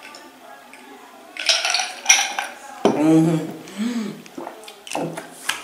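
A boy gasping and drawing sharp breaths, then groaning twice with a rising and falling pitch. It is the pained reaction to the icy menthol burn of ice water drunk with a mouthful of Halls candies.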